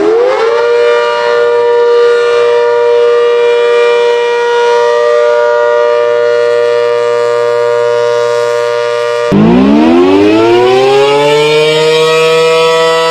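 Civil defence sirens: the first winds up in a steep rising wail to a steady chord of several tones and holds it; about nine seconds in it cuts off suddenly and a second siren winds up from a low pitch and levels off into its own steady chord.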